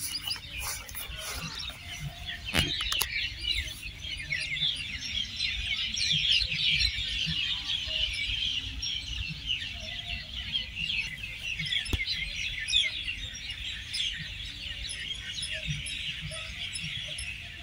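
A chorus of many small birds chirping and twittering together, a dense overlapping chatter of quick high chirps that swells to its fullest in the middle, over a faint low rumble.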